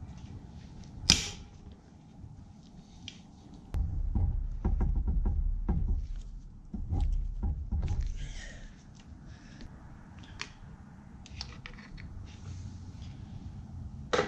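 Hands handling parts on a motorcycle-type engine's cylinder head, with no engine running: a sharp click about a second in, then several seconds of low rumbling and knocking, then scattered small clicks.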